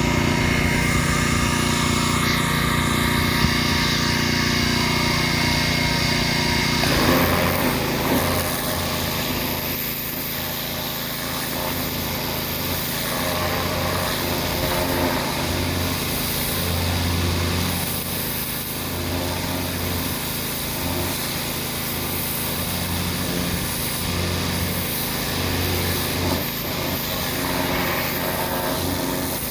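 Gas-engine pressure washer running steadily under load, its note changing about seven seconds in.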